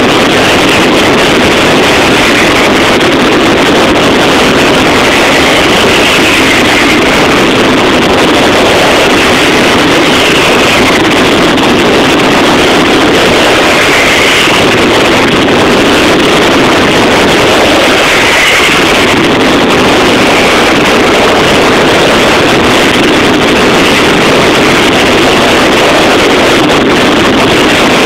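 Mascletà barrage of firecrackers, so dense that the bangs run together into one continuous, very loud din that overloads the phone's microphone.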